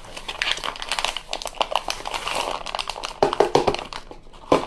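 Paper packaging of Jiffy corn muffin mix crinkling and rustling as the dry mix is poured from the box into a glass mixing bowl, with scattered light taps.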